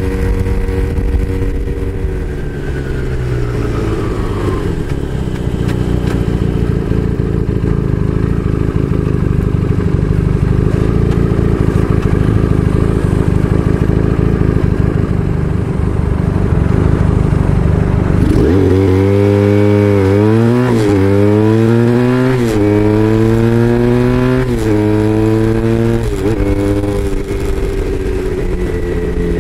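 Braaap Moto4 motorcycle engine on the move: its pitch falls a couple of seconds in and it runs steadily for a long stretch. About two-thirds of the way through it accelerates hard, revving up through several gears with a drop in pitch at each upshift.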